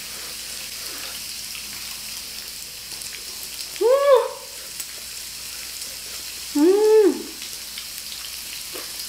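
Pork belly sizzling steadily on a small grill pan, with two short closed-mouth "mmm" hums of enjoyment, each rising and falling in pitch, about four and seven seconds in.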